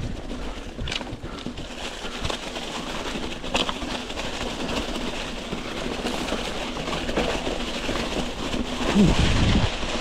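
Mountain bike rolling along a forest trail: a steady rumble of tyres over the ground with scattered clicks and rattles from the bike, getting louder near the end.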